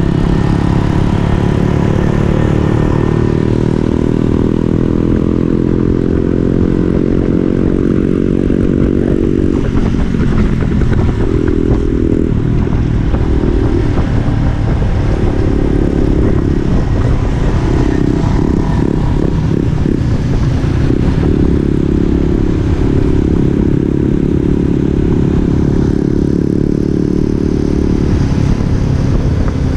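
Small Honda motorcycle's single-cylinder engine running while riding on a wet road, heard over wind rushing past the helmet camera. The engine note holds steady, then rises and drops repeatedly through the middle with throttle changes, and settles steady again near the end.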